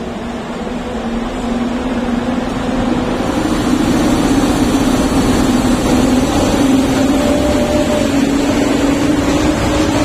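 EP07 electric locomotive accelerating away from the platform with its train, a hum that rises slowly in pitch and grows louder over the first few seconds, followed by the passenger coaches rolling past.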